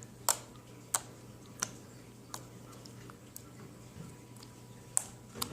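Homemade slime being poked and squeezed, giving sharp little clicks and pops, about seven of them at irregular intervals.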